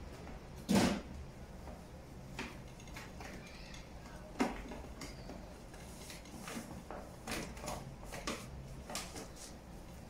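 Knocks and light clicks from wiping kitchen appliances with a cloth on a countertop: a sharp knock about a second in, another about halfway, then a run of lighter taps and rubbing, over a low steady hum.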